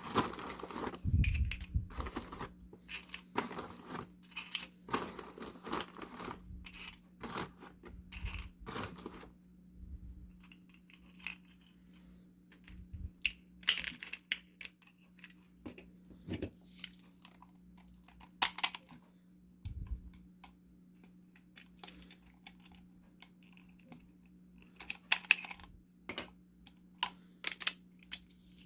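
Irregular plastic clicks, rattles and scrapes from 3D-printed toy gun shells being handled, with a faint steady hum underneath.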